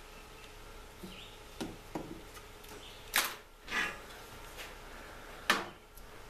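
Hands handling a rubber hydraulic hose and tools at a lift pump: a few light clicks, two rustling scrapes about three seconds in, and a sharp knock about five and a half seconds in, as a large cable cutter is brought onto the hose.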